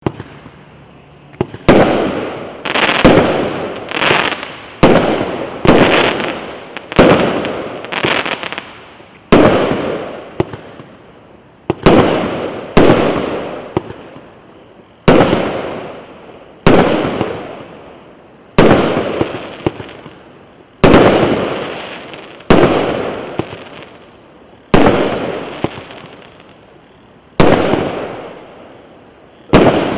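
Consumer fireworks cake, the VH8225 "Prosto Prazdnik" battery, firing shot after shot, starting about a second and a half in. Each shot is a sudden bang with a fading tail about a second long, coming roughly once a second at first and then every two seconds or so.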